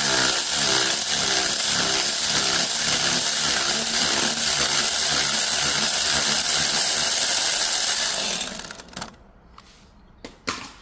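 Power tool, an impact wrench, running steadily while spinning out an alternator mounting bolt, with an even pulsing wobble about three times a second. It stops about eight seconds in, and a few small clicks follow near the end.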